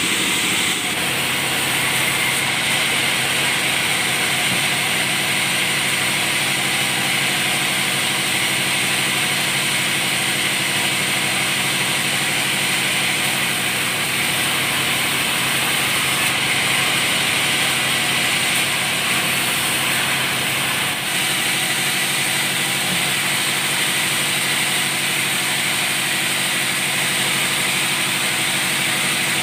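Band sawmill machinery running steadily, a continuous mechanical noise with no break or change in pace.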